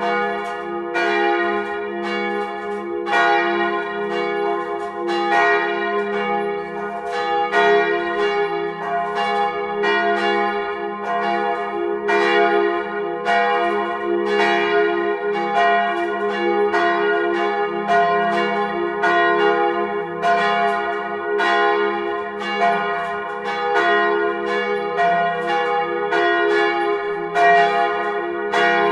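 Swinging church bells from the 1948 Petit & Fritsen ring of three (F, A-flat, B-flat) ringing together as a full peal, heard close up in the belfry. The clapper strikes fall about one and a half to two a second at uneven spacing, overlapping, with a steady hum ringing on between them.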